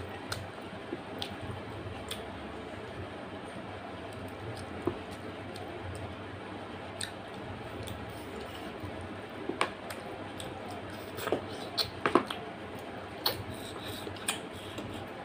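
Close-up eating sounds of a person eating curry and rice by hand: wet, squishy chewing and lip smacks, with scattered sharp clicks, the loudest coming in a cluster about ten to fourteen seconds in, over a steady low background hum.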